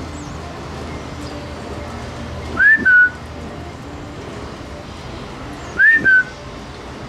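A loud, clear whistle sounds twice, about three seconds apart: each time a quick upward slide followed by a short steady note a little lower.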